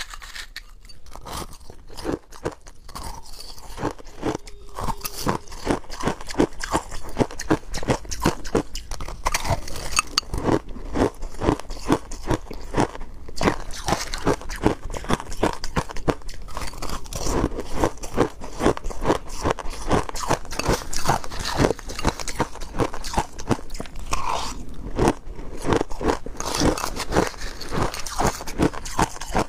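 Crushed ice being bitten and chewed close to the microphone: dense, crisp crunches several times a second, starting a little softer and growing louder after the first few seconds.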